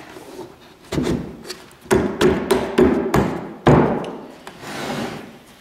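Wooden wall panels of an egg hutch knocking together as a side wall is slid into its pocket on the back wall: a string of half a dozen hollow wooden knocks and thuds over about three seconds, followed by a softer scrape.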